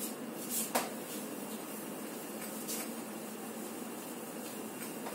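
Faint wiping of a duster across a whiteboard, with a soft knock just under a second in.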